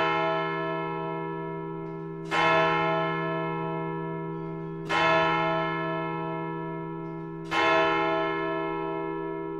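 A single bell tolling at a slow, even pace: three strikes about two and a half seconds apart, each ringing on and slowly fading into the next.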